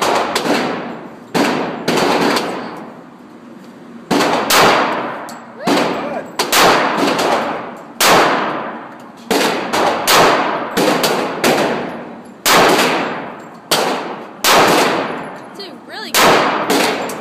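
Gunshots: a long, irregular string of well over a dozen sharp shots, some in quick pairs, each followed by a short decaying echo.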